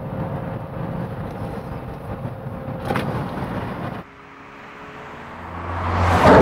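Mazda 6 with its 2.3-litre four-cylinder engine driving on the road, heard from inside the cabin as steady engine and road noise, with a single click about three seconds in. About four seconds in, the sound cuts to outside: the car approaches, growing steadily louder, and passes close by at the end.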